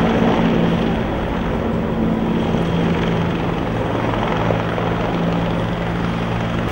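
Firefighting helicopter with a slung water bucket flying over, its rotor and turbine making a steady loud drone with a low hum that drops lower about halfway through.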